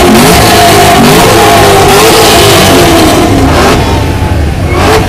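Car engines revved hard through loud exhausts, the engine pitch swinging up and down again and again. The revving eases off about three and a half seconds in.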